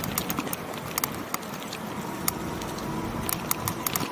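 E-bike rolling over paved road: a steady rumble of tyres and wind, with frequent sharp rattling clicks from the bike jolting over the pavement, and a faint steady high whine throughout.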